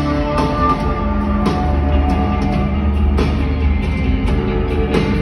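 Live rock band playing an instrumental passage: drum kit hits over held guitar tones and a heavy, booming bass, loud and steady.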